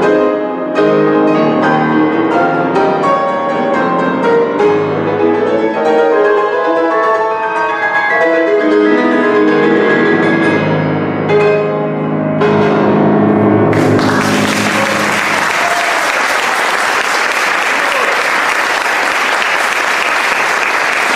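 Solo grand piano playing the closing bars of a classical piece, ending on a held chord. About fourteen seconds in, audience applause breaks out and carries on steadily.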